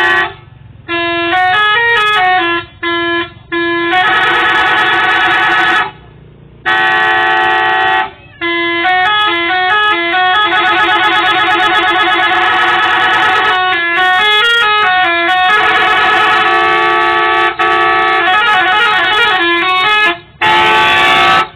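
Telolet horn on a coach: a multi-tone bus horn playing quick stepping tune patterns and long held chords, in a series of loud blasts with short breaks between them.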